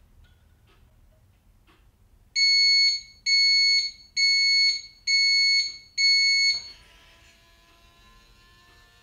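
Breville TT24 toaster's end-of-cycle alert: five evenly spaced, high electronic beeps, each about two-thirds of a second long, signalling that the toast is done. Faint ticking comes before the beeps and a faint hum follows them.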